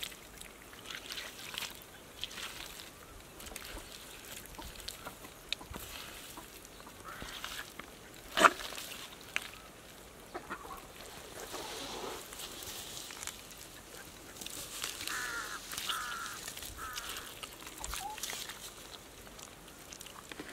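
Bare hands scooping and squelching through wet mud, irregular and uneven, with one sharp knock about eight seconds in.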